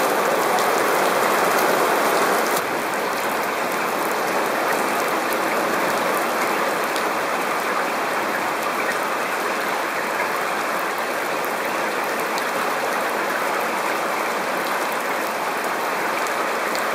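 Heavy rain pouring down steadily onto wet pavement and a station platform, a dense even hiss with faint scattered drop ticks; it becomes slightly quieter about two and a half seconds in.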